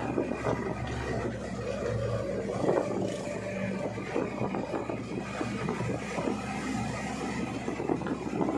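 Jeep Willys driving along, its engine running steadily under the rattle and road noise of the open body.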